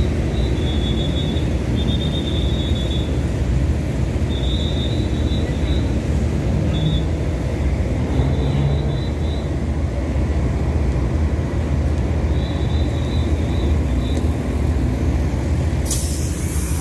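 Diesel railcar train idling at the platform, a steady low engine rumble, with short high-pitched tones coming and going. A sudden hiss starts near the end.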